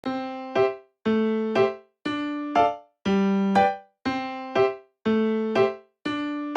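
Background music: an electric-piano-like keyboard playing a simple repeating phrase, a held low note followed by a short higher note, about once a second.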